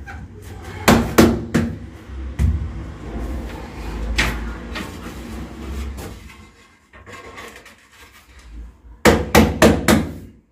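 Sharp taps and knocks on ceramic wall tiles as they are bedded into tile adhesive. A few scattered knocks come in the first half, then a quick run of about five near the end.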